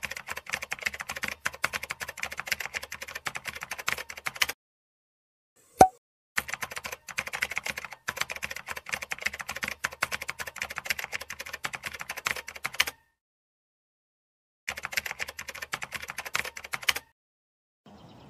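Computer-keyboard typing sound effect: three runs of rapid key clicks, with a single short pop about six seconds in.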